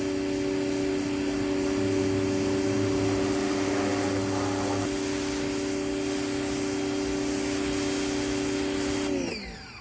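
Greenworks 1700 PSI electric pressure washer running, its motor humming steadily under the hiss of water spraying from the power nozzle. About nine seconds in the spray cuts off and the motor winds down, its hum falling in pitch as it stops.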